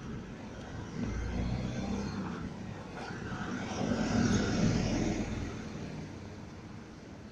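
Street traffic with a box delivery lorry driving past close by: its engine rumble builds from about a second in, is loudest about four to five seconds in as it passes, then fades away.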